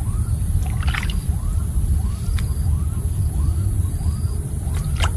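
Water splashing as a fishing gill net is handled: a short splash about a second in and a bigger one near the end. Under it runs a steady low rumble and a faint chirp repeating about twice a second.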